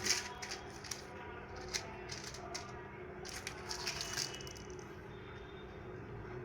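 Medicine packaging being handled: irregular light clicks, rattles and crinkling, with a denser run of them a little past the middle.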